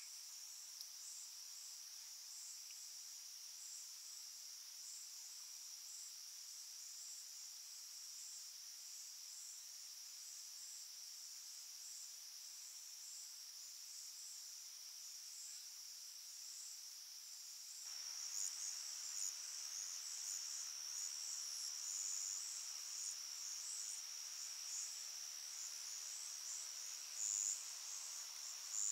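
Crickets and other night insects trilling in a continuous chorus: a steady high trill with a faster pulsing call just above it. About two-thirds of the way through, the chorus suddenly grows louder and a faint low hum joins it.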